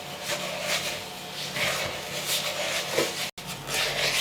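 Spoon scraping and beating in a mixing bowl, creaming butter and sugar together for cupcake batter, in rhythmic strokes about two a second.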